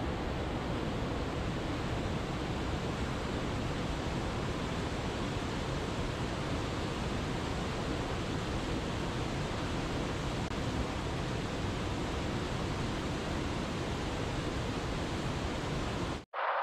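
Steady rushing water, an even unbroken roar like a waterfall or fast-flowing stream, which cuts off abruptly just before the end.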